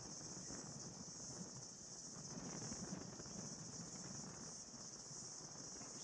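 Faint steady chorus of insects, a high-pitched shrill hum that pulses slightly, over a low rumble.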